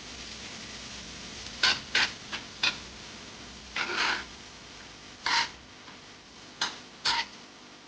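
Irregular short scrapes and light knocks, about eight over several seconds, typical of kitchen utensils and dishes being handled.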